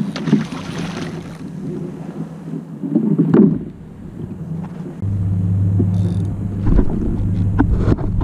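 Hooked barracuda splashing at the surface beside a kayak, with a heavier splash about three seconds in. From about five seconds a motorboat engine's steady low drone joins in.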